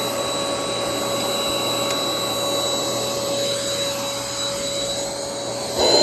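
Shark 2-in-1 stick vacuum's motor running steadily: a constant whine over the rush of air being drawn through.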